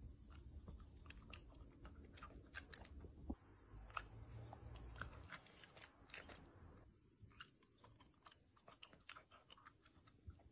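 A puppy chewing and smacking its lips as it eats bites of food off a fork: faint, irregular soft clicks and smacks.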